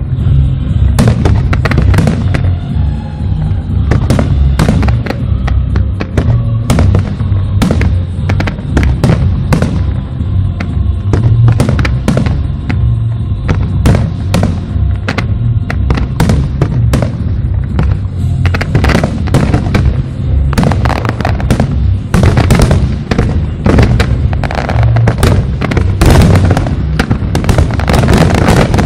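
Fireworks display at full intensity: aerial shells bursting in quick succession, bangs and crackle overlapping with many sharp reports every second, over music. The barrage grows denser in the last third.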